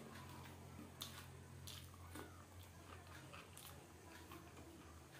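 Near silence with a low steady hum, broken by a few faint clicks and smacks of eating by hand: chewing, and fingers working food on a steel plate.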